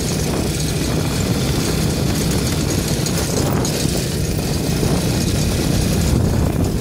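Small ATV engine running steadily while being ridden, with wind buffeting the phone microphone.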